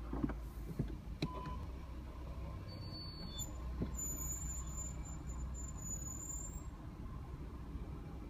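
Audi A3 (8V) brakes squealing: a thin, high-pitched squeal comes in about three seconds in, jumps higher and holds for about three seconds before stopping, over the low rumble of the car. A few light knocks sound near the start.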